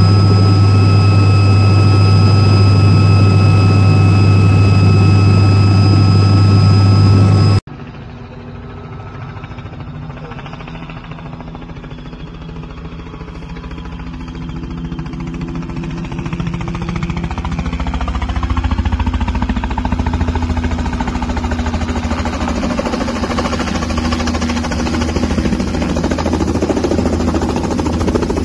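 Light helicopter's engine and rotor drone heard inside the cabin, loud and steady. It cuts off abruptly a third of the way in, and then a two-bladed light helicopter is heard from outside, approaching and growing steadily louder as it comes in to hover low over the landing pad.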